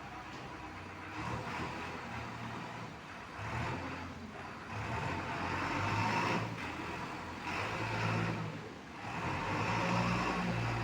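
Diesel engine of a JCB 3DX backhoe loader working, revving up and easing off in about five surges as the machine works its hydraulics.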